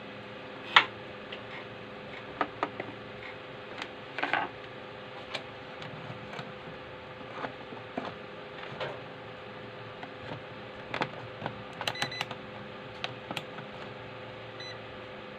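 Scattered clicks and light knocks from handling a digital multimeter's test leads and working its rotary dial and buttons, the sharpest click about a second in, over a steady electrical hum.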